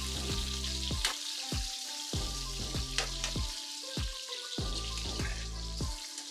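Sausage sizzling as it browns in hot oil in a pot, over background music.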